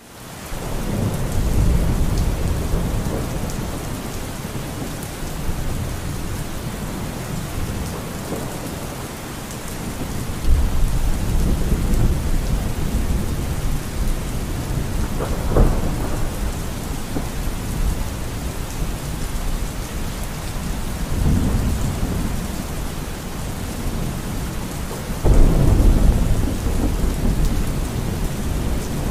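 Steady rain with thunder rumbling several times, the deepest and loudest rumble coming in suddenly near the end.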